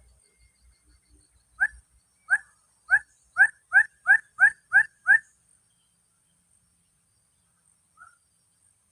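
A bird calling: a run of about nine short, rising notes that come faster and faster, then one faint note near the end.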